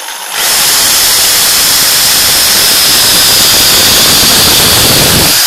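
Black & Decker KR704RE 710-watt hammer drill running at full speed, loud and steady with a high whine. It jumps to full loudness about half a second in and stops near the end.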